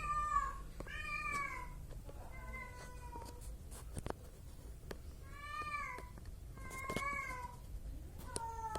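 A cat meowing over and over: about six short calls, each falling in pitch, with gaps of a second or more between them.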